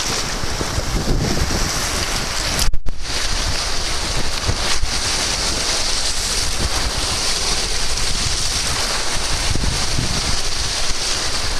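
Strong wind buffeting the microphone over choppy lake water, with small wind-driven waves breaking and splashing close by. About three seconds in there is a sharp gust or splash, then the sound cuts out for a fraction of a second.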